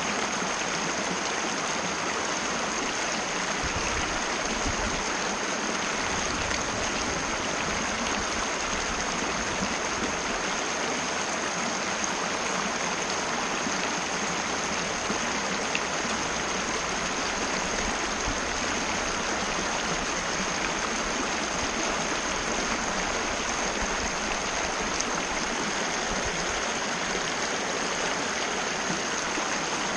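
Mountain river flowing over rocks, a steady, unbroken rush of water.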